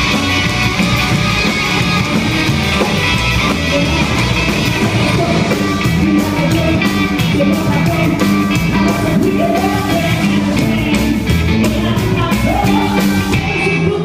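Live rock and roll band playing: electric hollow-body guitar, upright double bass and drum kit, with a woman singing.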